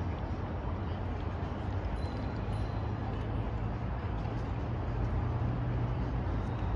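A cruise boat's engine running steadily, a low drone under an even wash of noise.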